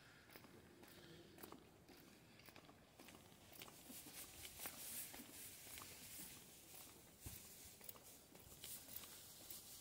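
Near silence with faint footsteps on pavement at an easy walking pace, a soft tap every half second or so, over a light hiss.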